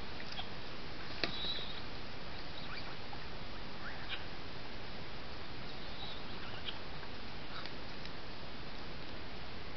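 Steady hiss of a camera trap's microphone, with faint short high chirps and squeaks scattered through and a single sharp click about a second in.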